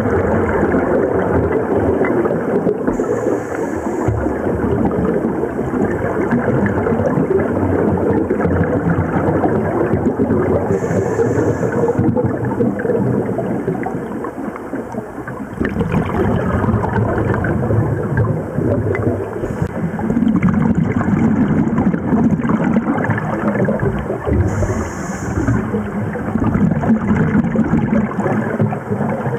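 Scuba diving heard underwater: exhaled air from a diver's regulator bubbling steadily, with a few short hisses, likely inhalations through the regulator.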